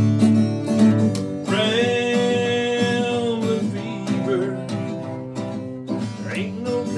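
Acoustic guitar strummed as accompaniment to a man singing a country song. He holds one long sung note from about a second and a half in for about two seconds, with another short sung phrase near the end.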